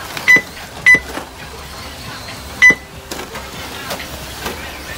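Three short electronic beeps from a race lap-timing system, two close together near the start and one about two and a half seconds in, each marking an RC car crossing the timing line. Steady background noise runs underneath.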